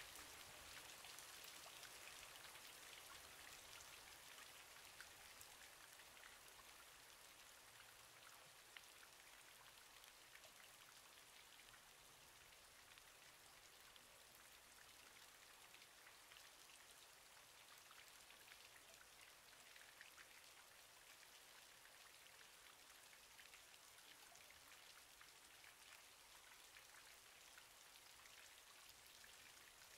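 Faint, steady patter of light rain: a soft hiss flecked with fine ticks, a little louder in the first few seconds.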